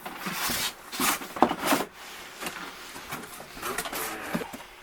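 Cardboard boxes and packaging being handled as a box of figures is opened and unpacked: rustling and scraping, loudest in the first two seconds, with a few sharp knocks.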